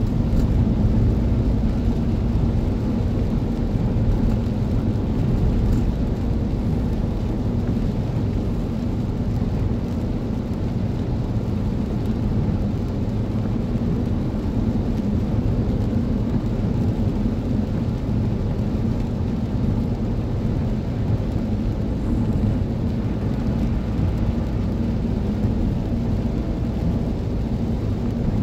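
Steady low road rumble inside a moving vehicle's cabin at about 80 km/h, with engine noise and tyres on the wet road.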